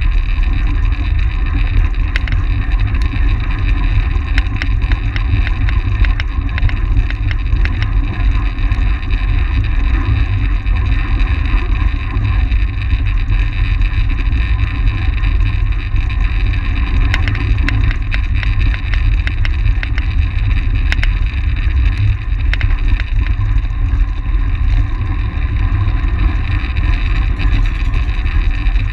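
Wind rushing over the microphone of a camera on a track bicycle moving at racing speed: a loud, steady low rumble, with tyre noise from the concrete track and scattered faint clicks.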